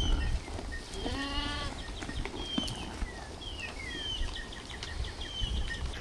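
A sheep bleats once, a single call lasting under a second, about a second in, with small birds chirping.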